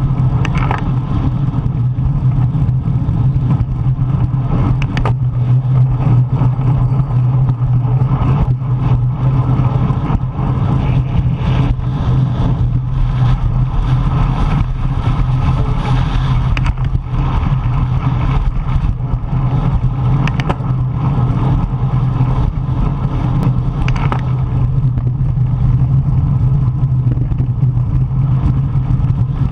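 Strong wind buffeting the microphone of a bicycle-mounted camera while riding: a loud, steady low rumble with scattered faint clicks.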